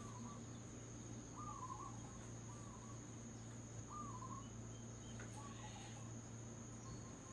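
Faint steady cricket trill, with a few short bird chirps scattered through it and a low steady hum.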